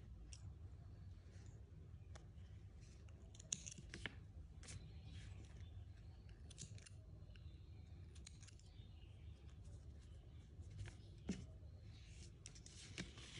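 Small spring-loaded thread snips cutting yarn ends: a handful of faint, scattered snips and clicks over a low background hum.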